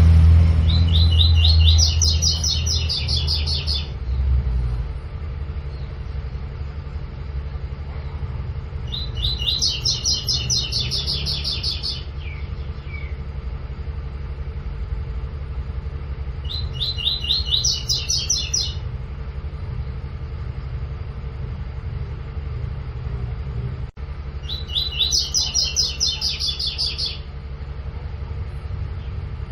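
Double-collared seedeater (coleiro) singing its 'tui tui' song: four phrases of fast repeated high notes, each two to three seconds long and spaced about eight seconds apart. A steady low rumble runs underneath.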